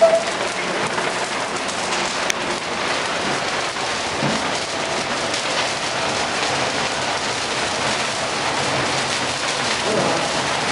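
A dry Christmas tree burning fully engulfed in flames: a steady rushing crackle of the fire, with a sharp snap about two seconds in.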